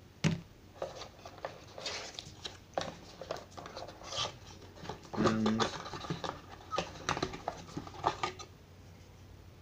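Handling of a small white cardboard box as its tuck flap is opened: scattered clicks, taps and rustles of paperboard. A brief voice-like sound comes about five seconds in.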